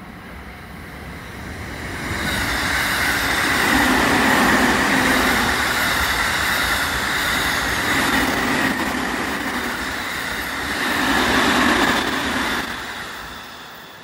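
JR E217-series electric multiple-unit train running past at speed: the rush of steel wheels on rail and running gear swells up about two seconds in, stays loud with a second surge late on, then fades near the end.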